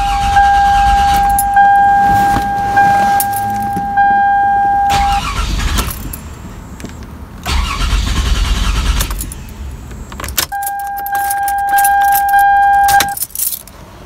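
2002 Toyota Camry 3.0 L V6 (1MZ-FE) being cranked by the starter in a couple of attempts without catching, because the engine coolant temperature sensor connector is unplugged. A steady dashboard warning tone sounds between the attempts, and keys jangle in the ignition near the end.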